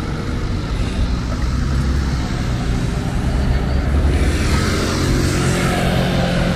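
Street traffic running steadily, with a motor scooter passing close that gets louder in the second half.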